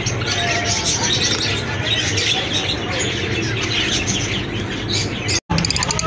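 A flock of caged Java sparrows chirping and chattering in a dense, continuous overlapping din, broken by a brief cut-out of all sound about five and a half seconds in.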